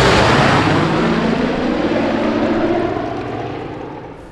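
Propeller aircraft flying past, its engine noise dense and loud, the engine tones sliding gradually lower as it passes and fading away over the last second or so.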